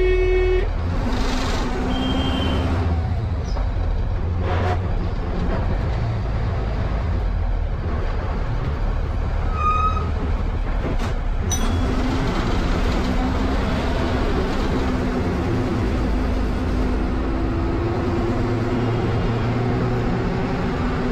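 Inside a moving MSRTC bus: the engine running and road noise as it drives, with a horn ending in the first second and the engine note rising a little near the end.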